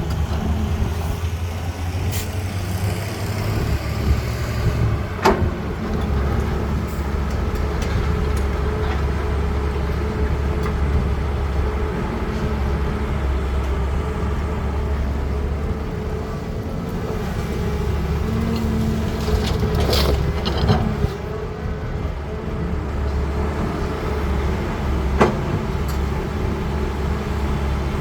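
Cat 320D hydraulic excavator's diesel engine running steadily under working load, its low hum shifting as the load changes, with a few sharp knocks of heavy material now and then.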